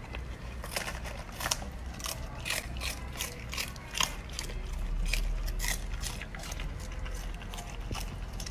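A golden retriever puppy chewing napa cabbage leaves: a run of irregular, crisp crunches, several a second.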